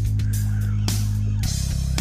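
Background rock music with guitar, bass and drums; the bass note changes about one and a half seconds in.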